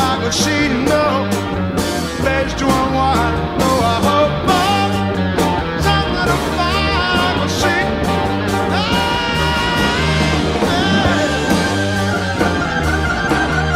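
Rock band playing live in an instrumental passage: drums and bass keep a steady beat under keyboards, with a lead melody line that bends and glides in pitch.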